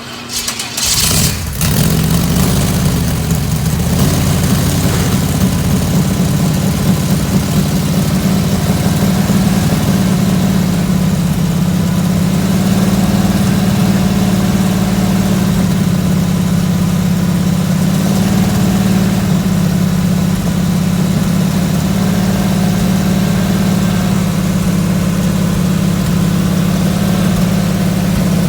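Chevrolet 350 cubic-inch small-block V8 running loud and steady, picking up sharply about a second in and then held at a constant speed.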